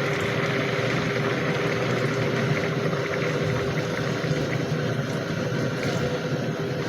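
Milk being poured into a pot of boiled, mashed carrots cooking on the stove for gajar ka halwa, a steady even hiss with no breaks.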